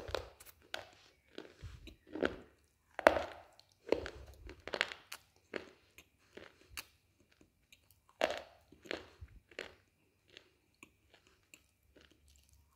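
Thin slate being bitten and chewed close to the mouth: crisp, gritty crunches in an irregular run, with the loudest bites about three and eight seconds in and softer chewing crunches between.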